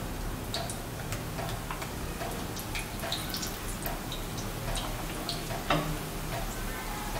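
Besan-battered potato slices (aloo pakora) frying in oil in a pan on a low flame, the oil bubbling with scattered, irregular small pops and crackles. A louder pop comes near the end.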